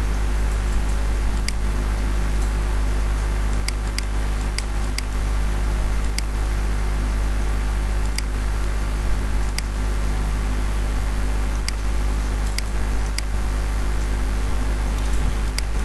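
Steady hum and hiss with a strong low drone, broken every second or two by single sharp computer-mouse clicks at an irregular pace.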